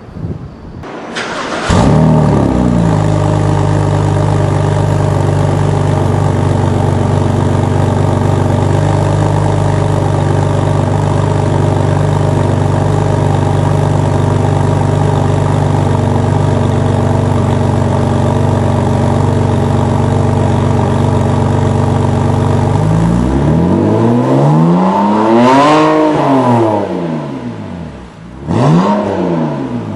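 BMW E90 3 Series straight-six through an Eisenmann sport exhaust with midpipe, starting up with a brief flare and settling to a steady idle. Near the end it is revved once, rising and falling over about three seconds, then given a short blip.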